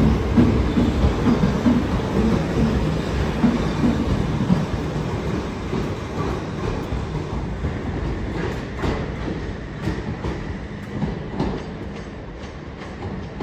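Electric multiple-unit passenger train departing, its rumble fading steadily as it pulls away. Wheels clatter and click over rail joints and points, with sharp clicks in the second half.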